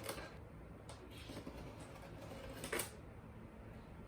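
Faint scratching and light tapping of a pen tracing around a small fan on a styrofoam cooler box, with one sharper click about two-thirds of the way through.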